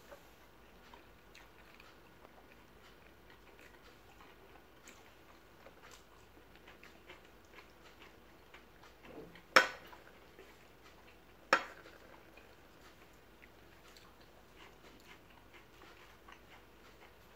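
People eating a meal by hand: faint chewing and small scattered clicks, with two sharp knocks about two seconds apart a little past the middle.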